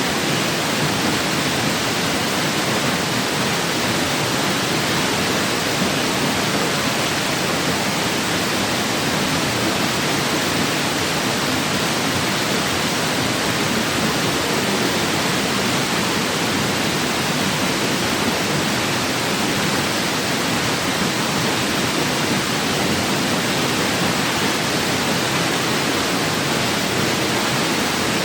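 Waterfall pouring steadily: a loud, even, unbroken rush of water.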